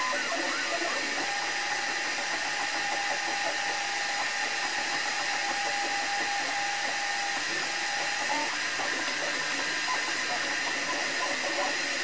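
Desktop FDM 3D printer running mid-print: a steady fan hiss with a fixed high whine under the changing tones of the stepper motors moving the print head. One stepper note holds steady for several seconds, then shifts higher near the end; short rising-and-falling chirps come with the curved moves.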